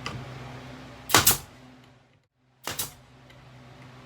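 Sharp impacts in two quick double strikes, about a second in and again a second and a half later, as wood trim strips are fastened onto plywood panel edges. A low steady hum sits underneath.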